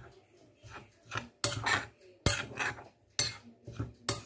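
Metal spoon stirring a dry flour-and-oat mix in a cut-glass bowl, scraping and clinking against the glass: sharp clinks about once a second with softer scrapes between.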